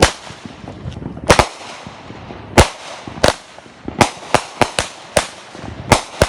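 Consumer fireworks going off: a run of sharp, loud bangs at uneven intervals, coming faster from about four seconds in, with a light hiss between them.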